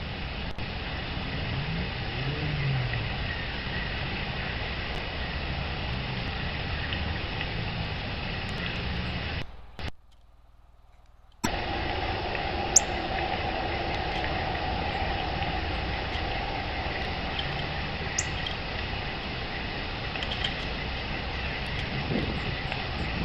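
Steady rushing background noise of the kind passing traffic makes, with two brief high bird chirps in the second half. The noise cuts out for about a second and a half just before the middle.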